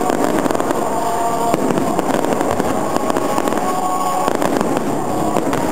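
Fireworks going off in a dense, continuous crackle of many small rapid pops from glitter-star shells. It is loud and unbroken, with bigger bursts mixed in.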